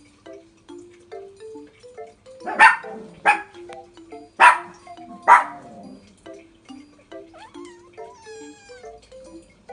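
Munchkin kitten meowing four times in short, sharp calls, begging to be fed, over light background music.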